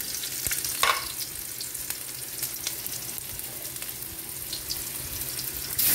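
Sliced ginger and garlic sizzling in a little hot oil in a steel wok, stirred with a metal spatula that scrapes and taps against the pan. One louder spatula knock comes about a second in.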